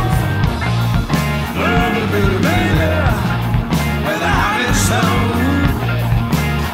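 Blues rock band recording playing: drums with cymbal hits, bass and electric guitar.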